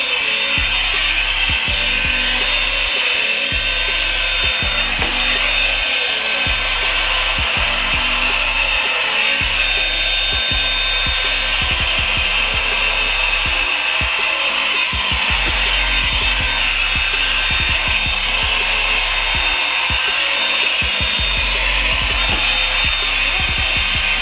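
Revlon brush blow dryer running steadily, a loud even rush of hot air.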